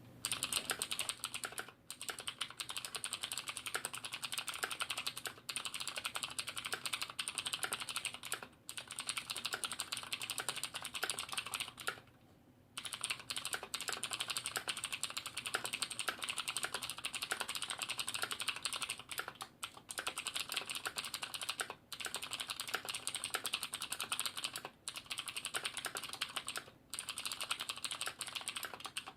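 Fast, continuous typing on a Davinci Sparky mechanical keyboard with KBTalking Blue clicky switches, the sliders and stabilizers lightly lubed and sound-dampening added, so the crisp blue-switch click stands out. It stops briefly several times, the longest break about twelve seconds in.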